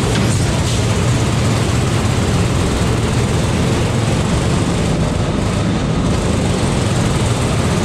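Go-kart engine running steadily at speed, heard onboard, mixed with wind noise on the camera microphone.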